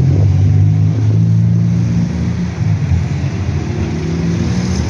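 City bus diesel engine running as the bus drives past and turns away, a steady low drone that eases off about halfway through.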